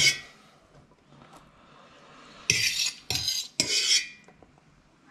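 Metal fork scraping and clinking against a plate, likely twirling up spaghetti, in three quick bursts about two and a half seconds in.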